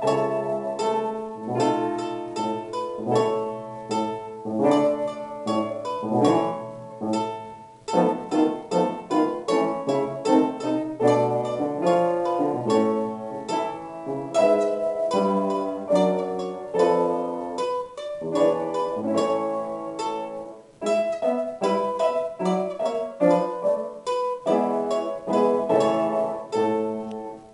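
Domra played with quick plucked notes over an upright piano accompaniment. The music stops briefly twice and ends just at the close.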